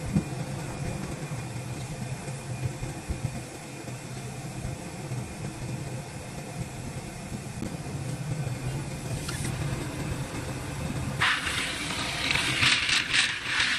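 A machine motor runs with a steady low hum. About eleven seconds in, a loud, rough hiss starts and lasts about three seconds.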